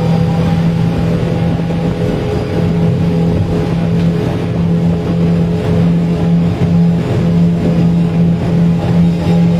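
Suzuki 100 hp outboard motor running at a steady speed with the boat underway.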